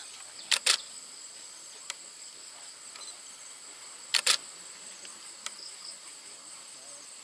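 A steady high-pitched chirring of insects runs throughout. Over it come two loud pairs of sharp, quick clicks, about half a second in and about four seconds in, plus two fainter single clicks.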